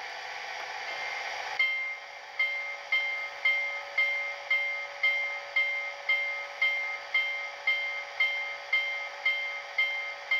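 Sound-decoder locomotive bell of an HO-scale Rivarossi Blue Ridge 2-6-6-6 steam locomotive with an ESU LokSound decoder, played through the model's speaker over a steady hiss. The bell starts about a second and a half in and rings steadily about twice a second, imitating the swing of a real bell.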